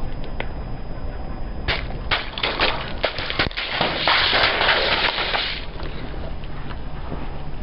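A car tyre rolling over crunchy objects and crushing them: a few sharp cracks and pops, then dense crackling for a second or two that stops abruptly, over a low steady rumble.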